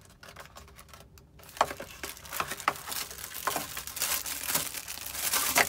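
Plastic packaging crinkling and rustling as it is handled. At first there are scattered crackles, which become a dense, continuous crinkle from about halfway through, loudest near the end.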